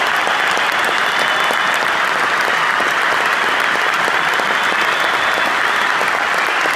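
Large arena crowd applauding steadily, thousands of claps blending into one even wash of sound.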